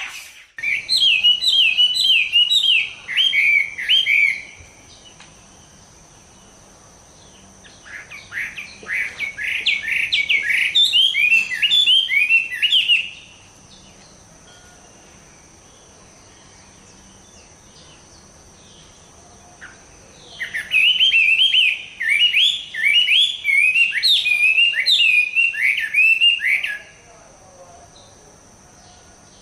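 A tame Chinese hwamei in moult singing in three bouts of rapid, repeated whistled phrases, with pauses between the bouts.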